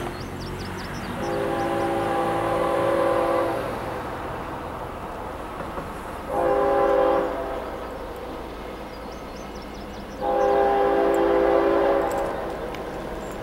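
Distant freight diesel locomotive's multi-chime air horn sounding a chord in three blasts, long, short and long, the closing part of the long-long-short-long grade-crossing signal. A low locomotive rumble runs beneath.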